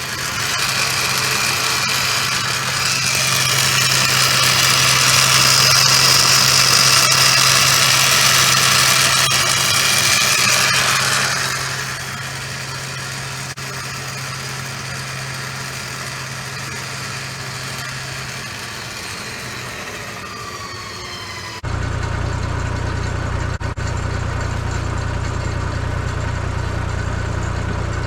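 Badland electric winch running under load as it reels in cable, a loud whine over a truck engine idling. The winch dies down about twenty seconds in with a falling pitch, after which a steady engine idle remains.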